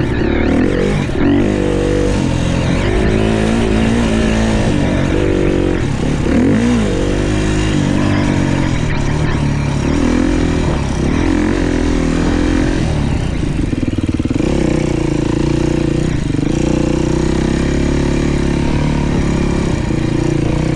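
Dirt bike engine running hard under a rider, its pitch rising and falling over and over as the throttle is opened and rolled off, then holding a steadier pitch for the last several seconds.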